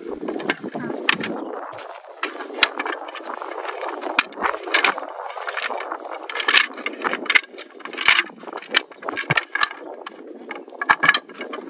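Irregular clicks, knocks and scrapes over a steady rustling, typical of things being handled and moved about.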